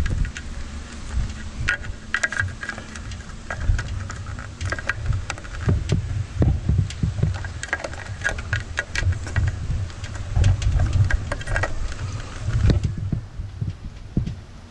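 E-bike controller and its wiring being handled and pushed up into the bottom of the frame's down tube: irregular clicks, rattles and rustling of cables and plastic connectors, over a low, uneven rumble.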